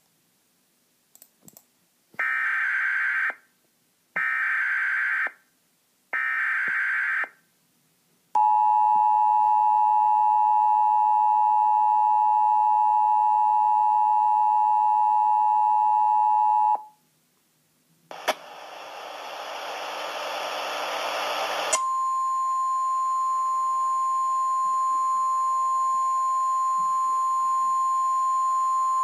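Emergency Alert System tornado-warning tones: three short bursts of screeching SAME data header, then the two-tone EAS attention signal held for about eight seconds. After a pause and a click, a hiss of static rises and gives way to a long steady single-pitched alert tone.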